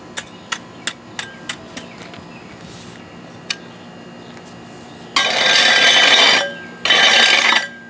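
Sharp taps of a long-handled flat steel scraper tamping loose cold-patch blacktop, about three a second for the first two seconds, then one more tap. Near the end come two longer harsh rushes of noise, about a second and under a second long.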